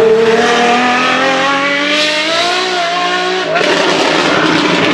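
Apollo Intensa Emozione's V12 engine accelerating, its note climbing steadily for about two seconds and then holding, before breaking off about three and a half seconds in into a rougher, noisier engine sound.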